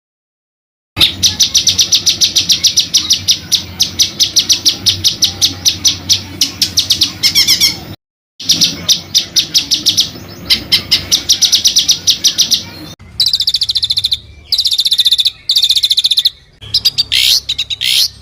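An African songbird's rapid rolling song: fast runs of sharp repeated notes, starting about a second in, breaking off briefly about eight seconds in, then coming back in shorter runs separated by brief gaps.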